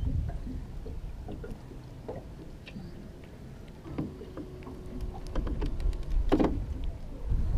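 Low, uneven rumble of wind on the microphone and water against a small aluminium boat, with small scattered clicks and taps as a soft-plastic lure's hook is worked out of a bream's mouth by hand. A louder knock comes about six seconds in.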